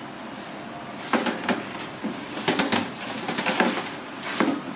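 A metal tray clattering and knocking against a stainless-steel counter as it is carried and set down: a string of sharp knocks starting about a second in and running for some three seconds.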